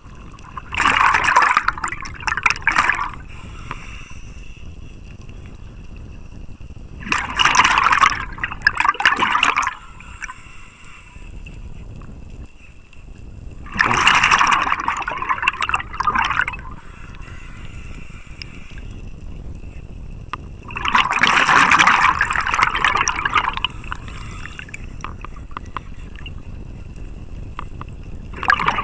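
A scuba diver breathing through a regulator underwater: loud rushes of exhaled bubbles lasting two to three seconds, coming about every seven seconds, with a quieter hiss between them.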